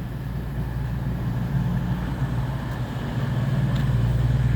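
Train at the platform, a low steady drone that grows gradually louder.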